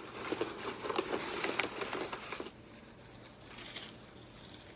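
Rustling and crinkling as hands rummage in a gift box and lift out an artificial pine wreath. It is busiest over the first two and a half seconds, then fades to a faint rustle.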